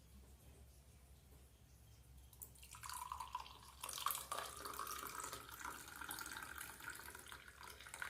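Thoothuvalai–thulasi kashayam, a herbal decoction, being poured into a vessel. The pouring starts about two and a half seconds in and carries a faint note that rises slowly as the vessel fills.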